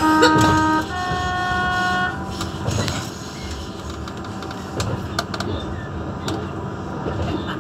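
Class 399 tram-train's horn sounding two notes, a lower one then a higher one, together lasting about two seconds. After the horn, the wheels run along the rails with occasional sharp clicks, heard from inside the driver's cab.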